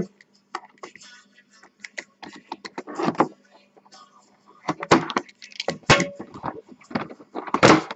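A blade slitting the sealed tape on a small cardboard box, with irregular scrapes, taps and rustles of the cardboard being handled; the loudest scrape comes near the end. A faint steady low hum runs underneath.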